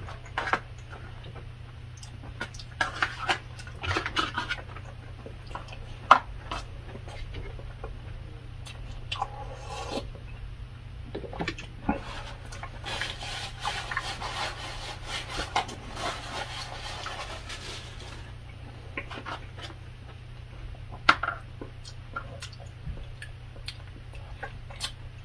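Close-up eating sounds: chewing a mouthful of food, with sharp clicks of a metal spoon and fork against plastic takeout trays. The sounds come scattered, with a denser busy stretch for several seconds past the middle.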